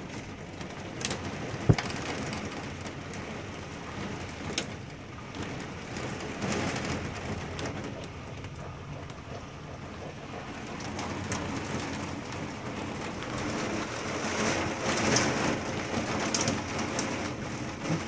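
Heavy rain pouring onto a wooden deck and the window glass, heard from inside, with the sharp taps of hailstones striking now and then. The loudest hit comes a little under two seconds in.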